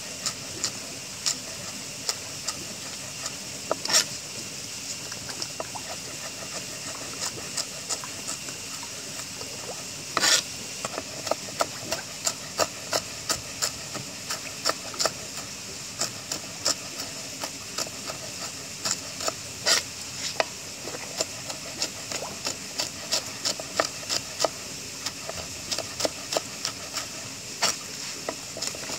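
Cleaver chopping leafy greens on a wooden board: a run of irregular knife strikes, coming quicker in the second half, with a few much louder chops, over a steady hiss.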